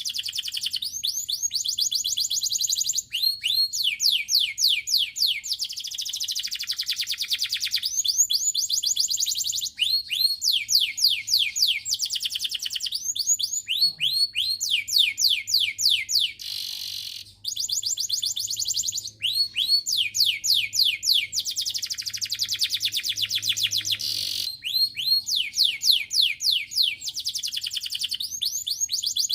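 Domestic canary singing continuously, a fast song of rapid trills, each a run of quick downward-sweeping notes, in phrases with short breaks between them.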